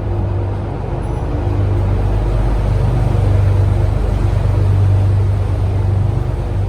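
Canal tour boat's engine running steadily with a deep, even hum, growing somewhat louder in the middle.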